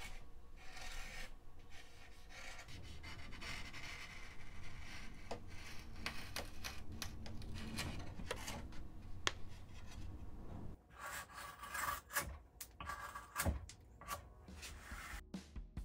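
An X-Acto hobby knife blade shaving and slicing along a balsa wood leading-edge strip: a continuous scraping cut that breaks into short separate strokes and clicks about eleven seconds in.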